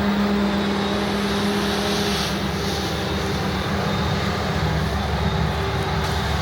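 Claas Jaguar 970 forage harvester running steadily under load while chopping rye, its MAN diesel engine giving a constant low hum over the rush of the crop and chopping drum.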